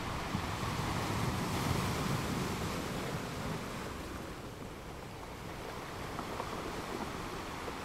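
A steady rushing noise that swells for a few seconds, eases, then builds again.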